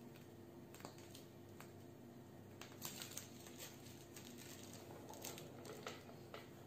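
Very quiet room with faint scattered clicks and crinkles of hands working a plastic piping bag and a cake board, a little busier about three seconds in, over a faint steady hum.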